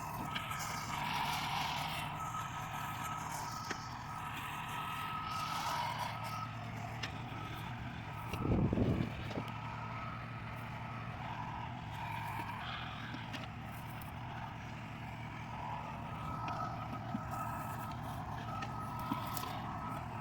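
Tractor diesel engine running steadily with a faint high whine over it, and a brief louder surge about eight and a half seconds in.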